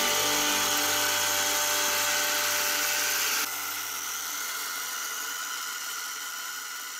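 Homemade belt grinder's small 180 W electric motor running steadily, with the abrasive belt whirring over its pulley and bearing roller. The hiss drops suddenly about three and a half seconds in, and the sound then fades away.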